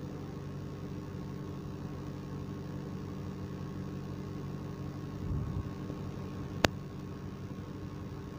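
Steady low mechanical hum, like a motor running, with one sharp click about six and a half seconds in.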